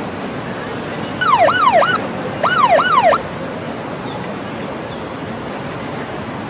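Police patrol boat's siren giving two short yelp bursts, each about three quick rising-and-falling whoops, over a steady background rush.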